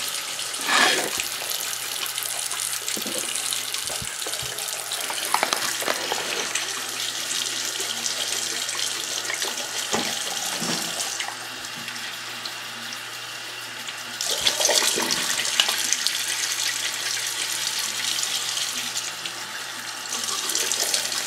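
Bathroom sink faucet running in a steady stream, with water splashing as a hand and forearm are rinsed under it. The splashing grows louder twice, about two-thirds of the way through and again near the end.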